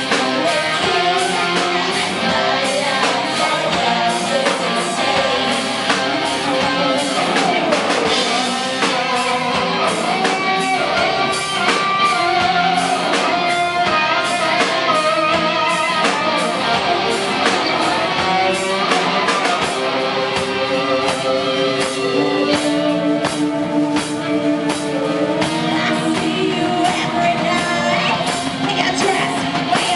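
A rock band playing live: guitar and drums, with a singing voice.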